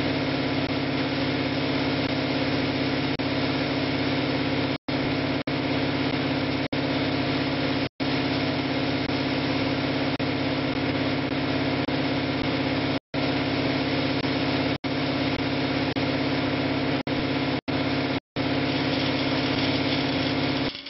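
Steady hum of a motor-driven machine running at constant speed, cutting out abruptly to silence for a moment several times.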